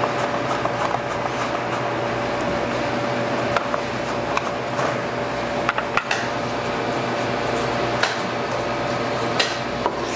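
Steady hum of kitchen ventilation throughout. A quick run of slicing strokes comes in the first second or two as a purple sweet potato is pushed across a plastic mandoline, followed by scattered light clicks and knocks on the cutting board.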